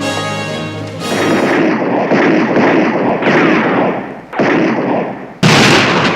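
A run of about five loud gunshots, roughly a second apart, each blast trailing off in a long echo. Music is playing at the start.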